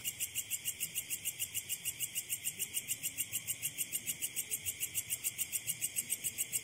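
Night insects chirping in a fast, even, high-pitched pulse, roughly eight pulses a second, without a break.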